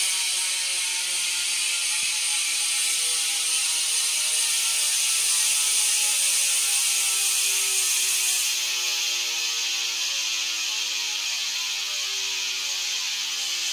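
Profile Elite BMX rear hub freewheeling with the wheel spun, its pawls ratcheting fast enough to make a loud continuous buzz. The pitch slowly falls as the wheel spins down.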